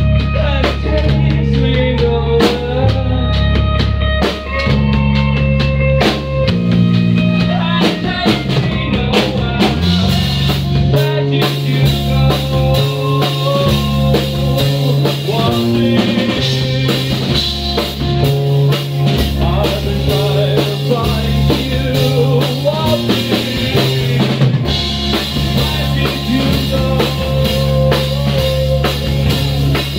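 Live band playing loudly: a Pearl drum kit keeps a steady beat with bass drum and snare, under a pulsing bass line and held guitar and keyboard notes.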